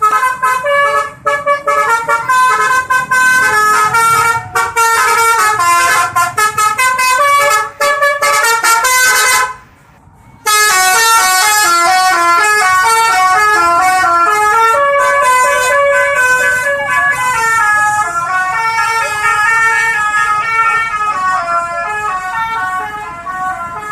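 Basuri bus's telolet horn, a multi-tone musical air horn, playing a quick tune of short notes that step up and down in pitch. It breaks off for about a second midway, then plays on.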